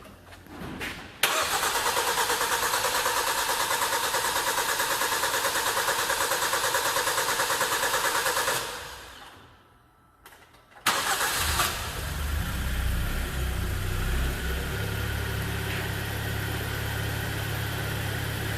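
Rebuilt Hyundai G4KD 2.0-litre four-cylinder engine's first start. The starter cranks for about seven seconds, stops, then on a second try the engine catches about eleven seconds in and settles into a steady idle.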